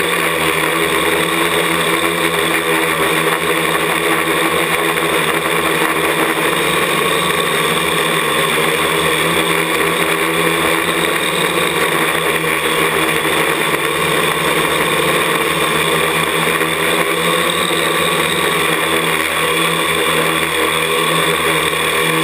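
Parallax ELEV-8 quadcopter's brushless motors and propellers running with a steady, even drone, close to the microphone of a camera mounted on the craft as it flies low.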